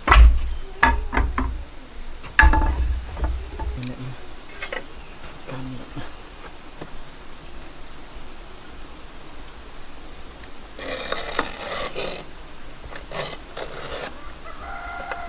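Wood being worked: several knocks and heavy thumps in the first few seconds, then a short rasping scrape about eleven seconds in.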